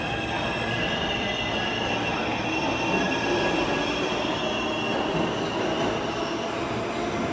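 Budd R32 subway train pulling out of an underground station and running past the platform, with a steady rumble of wheels on rail and a high, steady squeal over it.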